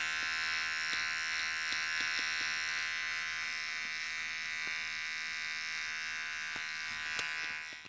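Electric hair clipper running with a steady buzz as it trims a straight line across the nape of the neck, dropping away near the end.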